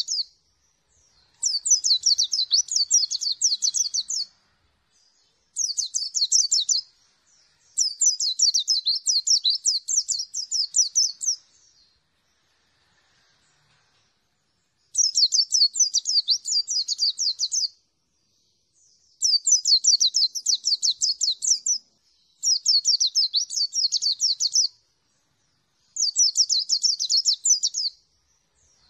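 A caged mountain white-eye (pleci dakun) singing: about seven bouts of rapid, high twittering song, each a couple of seconds long, with a pause of about three seconds in the middle.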